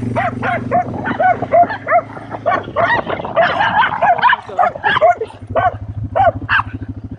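Dogs barking rapidly and repeatedly, about three barks a second, as they chase alongside a motorcycle, with the motorcycle's engine humming steadily underneath.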